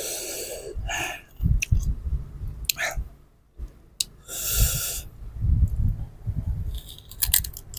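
A man blows out hard through pursed lips twice, hissing at the chili heat, then bites into a piece of unripe green mango dipped in salt and chili and chews it with crisp crunches.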